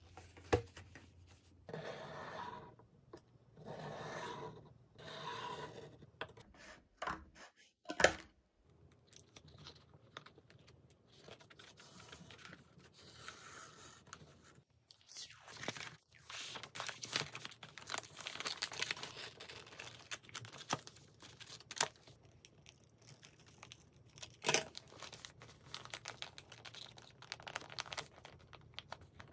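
Wrapping paper being handled by hand: rustling, sliding and tearing. Further on comes a long stretch of metallic foil wrapping paper crinkling as it is folded, with a few sharp taps in between.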